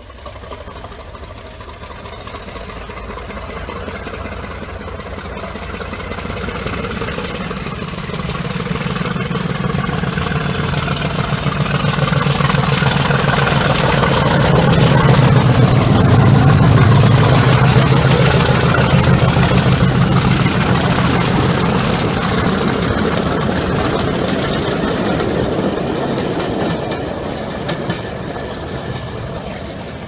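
English Electric Class 50 diesel locomotive pulling away under full power, its 16-cylinder engine thrashing as it passes close by. A turbocharger whine climbs steadily in pitch over the first dozen seconds and then holds. The sound is loudest about halfway through as the locomotive goes past, then eases as the train follows it out.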